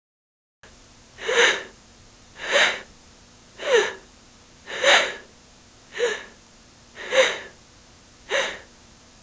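A woman panting out of breath: seven heavy, gasping breaths at a steady pace of about one a second, each with a slight catch of voice. They start after a short silence.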